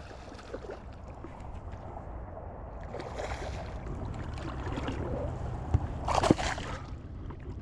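River water sloshing and splashing as a hooked largemouth-sized bass is fought and landed by a wading angler, over a steady low rumble. The loudest splash comes about six seconds in, with a sharp knock in it.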